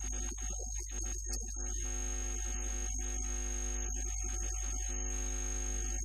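Synthesizer background music over a steady electrical mains hum; about two seconds in the music settles into a long held chord.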